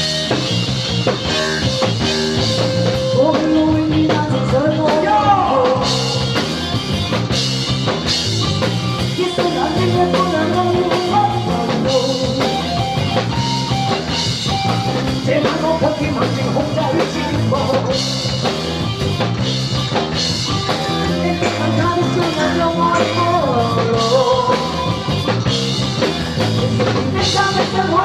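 A rock song with drum kit and guitar and a voice singing the melody.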